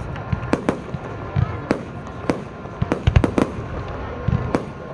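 Aerial fireworks bursting in a string of sharp, irregular bangs, with a rapid cluster of bursts about three seconds in.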